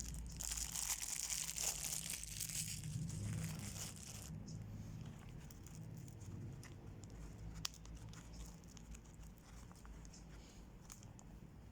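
Faint rustling of a nylon knife sheath being handled for the first few seconds, then scattered light clicks, with a sharper click about two thirds of the way in, over a low steady hum.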